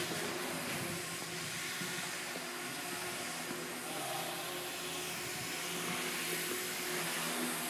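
MSH Mini Protos electric RC helicopter in flight: a steady whine from its brushless motor and spinning rotor blades, the pitch shifting a little as it manoeuvres.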